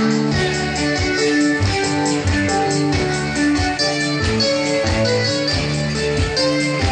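Lively music with a steady beat: a bass line under a repeating run of short melodic notes.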